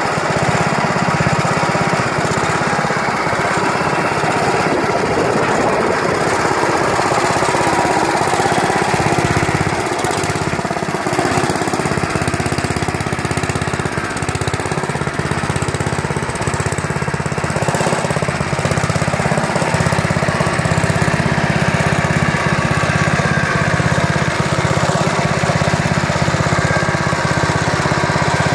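Small air-cooled engine of an Allis-Chalmers B-1 garden tractor running steadily, with no change in speed.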